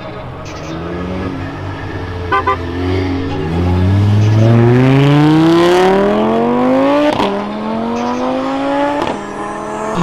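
Car engine accelerating hard at full throttle, its pitch climbing steadily. It shifts up twice, with a sudden pitch drop just after the seventh second and again near the end.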